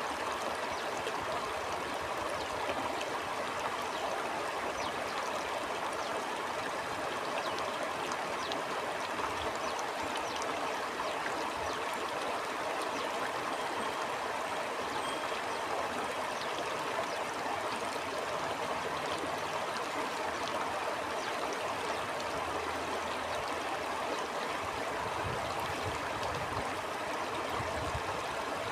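Stream water flowing steadily: an even rush of moving water with a fine, flickering babble.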